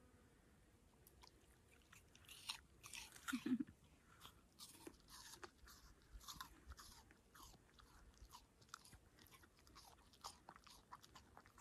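Crunchy chewing of a fresh apple: irregular small crunches, with the loudest ones about three and a half seconds in.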